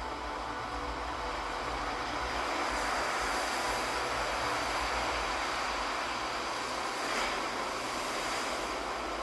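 Ocean waves washing in: a steady rush of surf that swells through the middle and eases toward the end.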